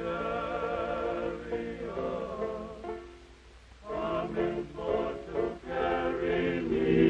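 A choir of voices sings slow, held chords of a spiritual. The sound fades almost away about three seconds in, then swells back and grows louder toward the end.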